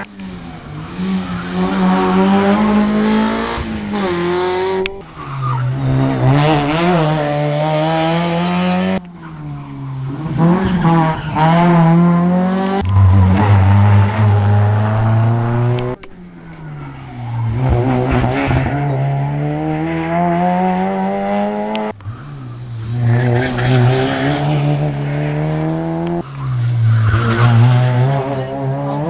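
Rally cars, one after another, accelerating hard with engines revving high, the pitch climbing and falling back with each gear change. The sound breaks off abruptly several times as one car gives way to the next.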